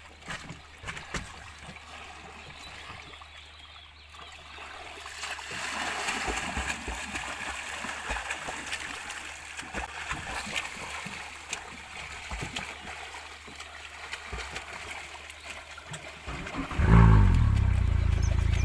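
Water splashing and lapping. Near the end a loud, steady low rumble starts suddenly and holds.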